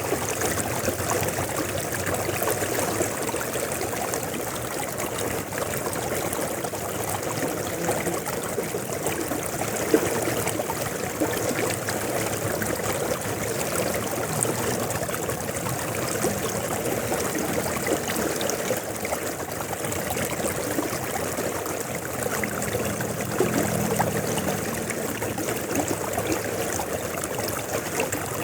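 River flowing: a steady, even rush of moving water.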